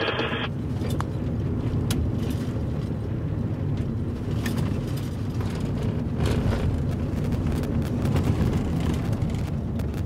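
Steady low road and engine rumble heard inside a car driving on a gravel road, with a few faint ticks scattered through it.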